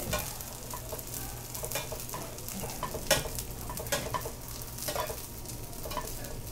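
Small dried anchovies frying in plenty of oil in a pan, sizzling steadily while being stirred, with irregular light clicks and scrapes of the stirring and one sharper click about three seconds in. It is the early stage of crisping the anchovies before the seasoning goes in.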